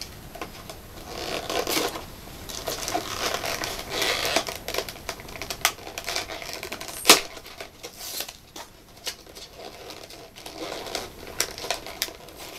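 A windowed cardboard toy box being handled and opened by hand: irregular rustling and scraping with scattered clicks, and one sharp snap about seven seconds in.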